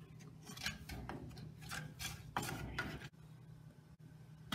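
A spoon stirring and scraping thick spice paste in an unglazed clay pot, with irregular rasping strokes that die down about three seconds in.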